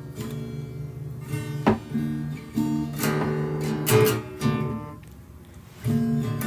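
Acoustic guitar strummed in chords, with several sharp strums standing out in the middle of the passage.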